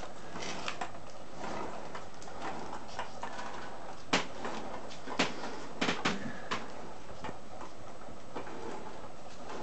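Marbles rolling and clicking in a biscuit-tin lid as a plastic bowl is turned by hand on top of them, with a few sharp clicks around the middle.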